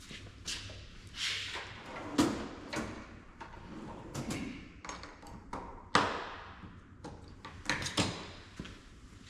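A string of irregular knocks and clanks, with the loudest about two seconds in and again about six seconds in, typical of tools and parts being handled at a shop bench.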